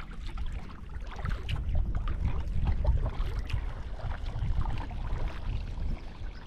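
Low rumbling wind noise on the microphone, with light splashing and lapping of water.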